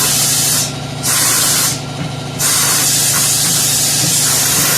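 Compressed air hissing loudly from an air line as it is fed into a tubeless tire on a tire changer to seat the bead; the airflow breaks off twice briefly, then runs on steadily. A steady low hum sits underneath.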